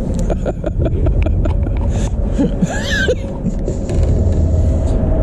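A crappie being landed into a boat: a quick run of clicks and knocks in the first second or so, over a steady low rumble and a faint steady hum.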